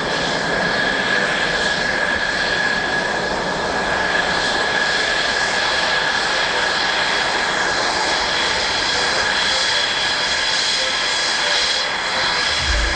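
Aircraft turbine engines running steadily, a continuous roar with a high, even whine over it.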